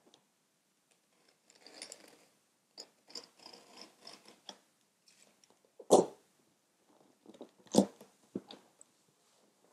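Razor blade slitting the packing tape along a cardboard shipping box, with crackles and scrapes of tape and cardboard. Then the box flaps are pulled open, with two sharp cardboard thumps about six and eight seconds in, the first the loudest.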